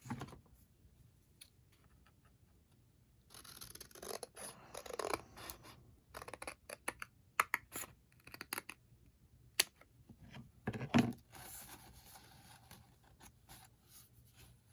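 Paper being handled and cut with scissors: a stretch of rustling, then a run of crisp snips and clicks, the loudest about eleven seconds in, with the first few seconds nearly quiet.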